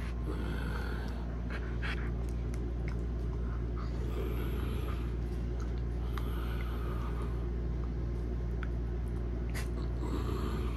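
A young husky snorting and panting while play-biting, heard in short breathy spells over a steady low hum.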